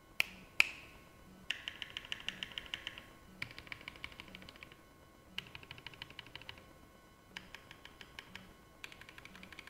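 Fast typing on mechanical keyboards: runs of rapid, even keystroke clicks about a second long, five times over with short pauses between. Two sharp, louder clicks come about half a second in, before the first run.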